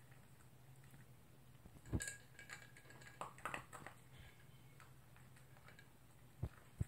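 A toy poodle eating dry kibble from a slow-feeder bowl: scattered crunches and small clicks of kibble and muzzle against the bowl, bunched about two to four seconds in and twice more near the end, over a faint steady hum.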